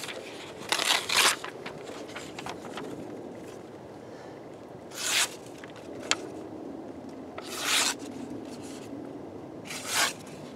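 A page torn from a book, then the Kizlyar Kalibr dagger's blade cutting through the sheet of paper in several short strokes a few seconds apart. It is a sharpness test after fifty rope cuts, and the edge frays the paper rather than slicing it cleanly.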